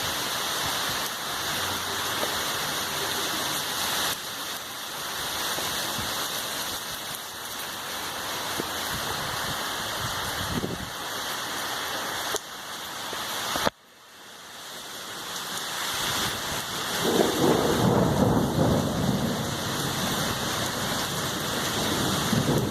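Heavy rain falling steadily, with a low rumble of thunder building in the last few seconds. Past the middle the sound drops out suddenly and swells back up.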